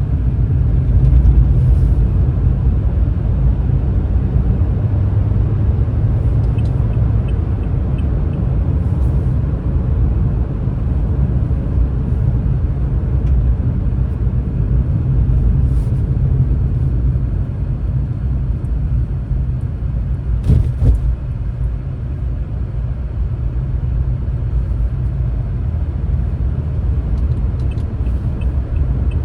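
Steady low rumble of a vehicle driving in slow traffic, engine and road noise, with a brief sharp knock about two-thirds of the way through.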